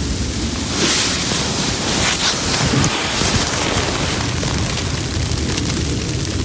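Steady rushing wind noise on the microphone, with a louder rustle of nylon about a second in that lasts a couple of seconds as the hammock, sleeping bag and camera are shifted.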